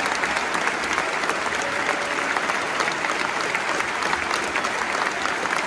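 Crowd applauding: many hands clapping steadily, a dense patter that holds an even level.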